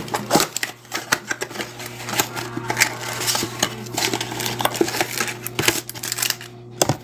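A pack of basketball trading cards being opened and handled: a string of quick crinkles and clicks from the wrapper and cards, over a steady low hum.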